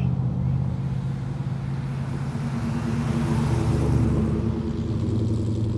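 Car engines running with a low note as cars drive slowly out of a car show, one growing louder as it passes about three to four seconds in.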